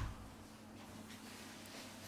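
A brief rustle or tap of hand-handling on the phone at the very start, then faint room tone.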